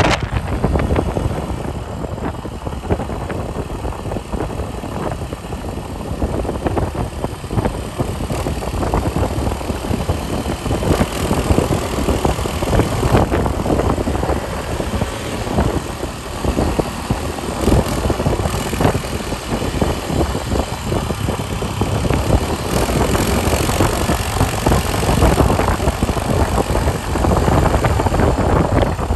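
A motor vehicle's engine running while wind buffets the microphone, a loud, uneven rumble.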